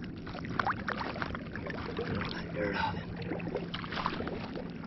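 Water splashing and sloshing in irregular bursts as a freshly caught fish is rinsed off at the water's edge, with a steady low hum underneath.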